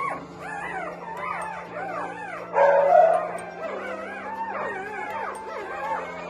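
Newborn Labrador retriever puppies crying, many short rising-and-falling squeaks and whimpers overlapping, with one louder, longer cry about two and a half seconds in. Steady background music plays underneath.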